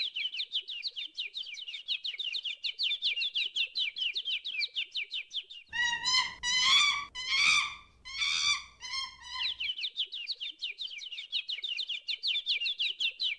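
Rapid, evenly repeated high chirping, like a bird's trill, with the chirps coming several times a second. About six seconds in, the chirping breaks off for roughly four seconds: a few louder pitched notes sound over a low hum, and then the chirping resumes.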